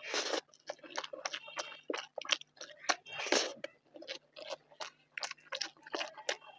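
Close-miked chewing of a mouthful of food: a quick, uneven run of wet mouth clicks and smacks, several a second, with two louder bites or smacks, one at the start and one about three seconds in.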